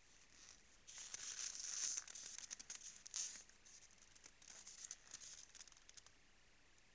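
Moose moving and feeding at a salt lick in snow: crisp crunching and crackling, densest from about one to three and a half seconds in, then thinning to scattered ticks.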